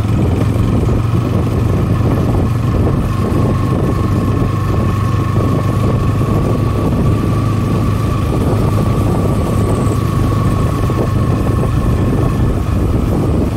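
Bajaj Pulsar NS200's single-cylinder engine running at a steady speed while being ridden, heard through a phone mounted on the rider's helmet.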